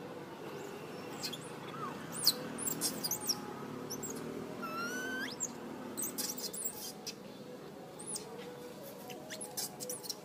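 Macaques squeaking: a run of short, high, falling squeaks and chirps, with one longer rising call about five seconds in.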